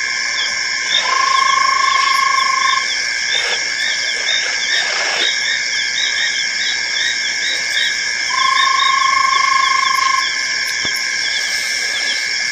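Chorus of frogs and insects at a waterhole: several steady shrill high tones with fast repeating chirps throughout. Twice, about a second in and again past the middle, a long even lower call sounds for about two seconds.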